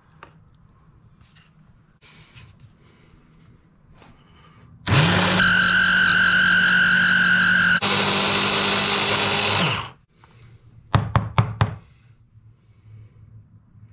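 Electric mini food chopper, a stick-blender motor head on its chopper bowl, running for about five seconds with a steady whine that drops slightly partway through, then pulsed four quick times near the end. It is chopping garlic, ginger, habanero chillies and lemon juice into a paste. Light knocks of the bowl and attachment being handled come before it starts.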